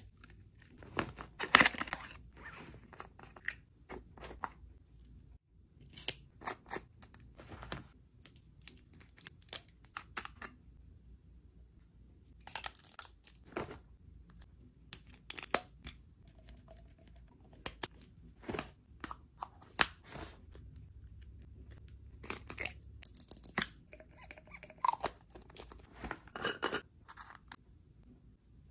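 Close-up handling sounds of small cosmetic travel bottles and jars: irregular clicks and taps of plastic caps, a pump top and containers, with short crinkly rustles.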